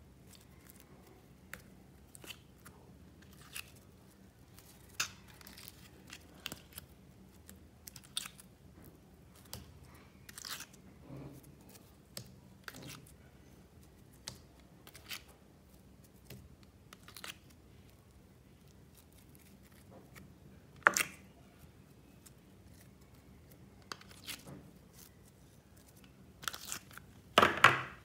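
Slime being handled by hand, stretched, pressed and pulled apart, with scattered sticky pops and crackles. Near the end a piece of fluffy slime is torn, giving a louder burst of crackling.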